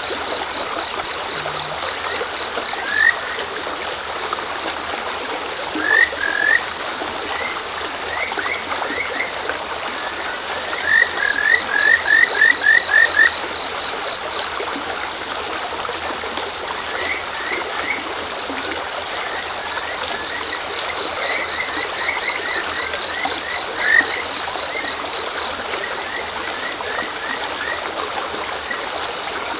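Kajika frogs (Buergeria buergeri) calling in series of short rising whistled notes, including a fast run of about eight notes near the middle, over the steady murmur of a shallow river. Crickets chirp in a fast, even pulse underneath.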